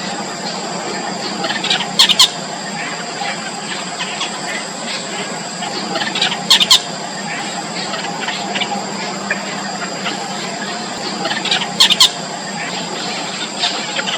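Yellow bittern chicks calling in the nest: many short, thin calls, with three loud double squawks, about two, six and a half, and twelve seconds in. A steady high hum runs underneath.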